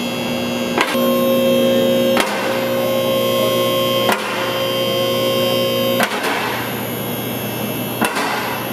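Car lift's electric hydraulic pump motor running with a steady hum and whine as it raises the car, with a short sharp click about every two seconds.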